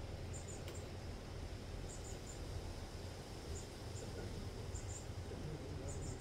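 Outdoor ambience: a low steady rumble under short, very high-pitched chirps that come in small clusters of two or three, every second or so.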